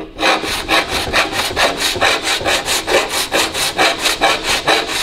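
Body file in its holder rasping across a car bonnet's sheet-metal panel in quick, even back-and-forth strokes, metal finishing the panel after flipper and dolly work.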